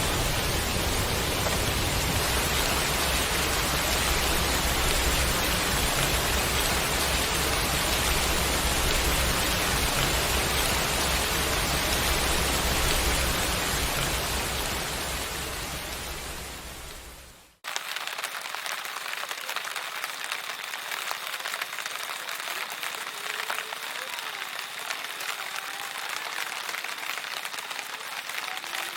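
A steady rushing noise of water, full and deep, that fades out about two-thirds of the way through. After a sudden cut it is followed by a lighter, crackling patter.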